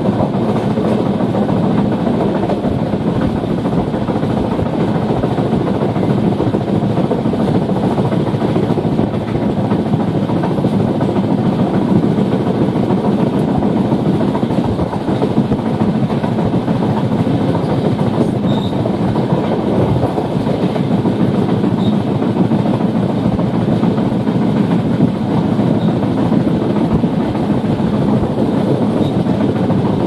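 Passenger train running at speed, heard from inside the coach near its open door: a steady rumble of wheels on the rails and coach running noise that doesn't let up.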